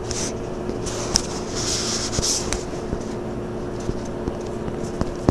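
Steady low background hum with a few light clicks and a brief hiss about two seconds in.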